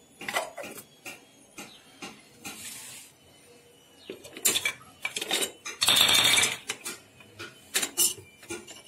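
Kitchen clatter: scattered light clicks and clinks of utensils and containers handled on a counter, with a louder short burst of hiss about six seconds in.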